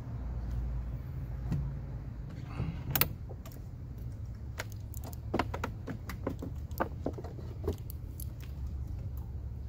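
Irregular metallic clinks and clicks of car battery cable clamps and a hand tool as the clamps are fitted back onto the battery terminals, the sharpest click about three seconds in, over a steady low hum.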